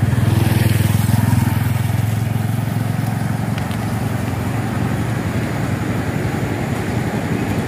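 Motorcycle engine running nearby with a steady low hum, loudest in the first couple of seconds and then slowly fading.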